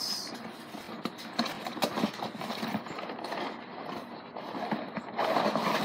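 Handling noise from gear being taken out of a bag: scattered light knocks and rustling, growing denser near the end.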